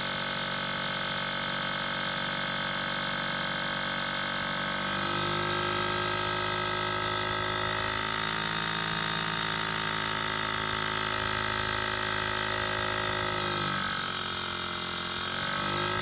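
Electric motor spinning a brushed rotary switch at roughly 3,000 rpm: a steady whine of several tones over a high hiss. The pitch steps up about five seconds in, then dips near the end and climbs back.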